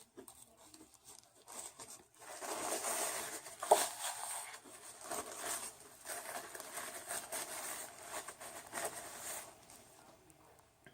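Paper or foil fast-food wrapper rustling and crinkling as it is handled, starting about two seconds in and stopping near the end, with a sharp click just before four seconds.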